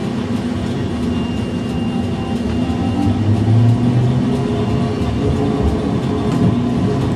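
Electric tram moving off and running through a curve, with the traction drive's hum and steel wheels rolling on the rails heard from the front of the car. The drive grows louder about three seconds in as the tram picks up speed.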